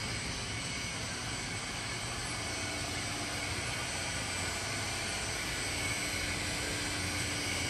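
Toper coffee roaster's motors and fans running: a steady rush of air with a low hum underneath.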